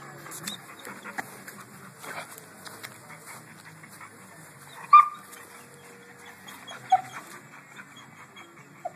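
Dog at a chain-link fence giving two short whimpering yelps, a loud one about halfway through and a softer, lower one about two seconds later.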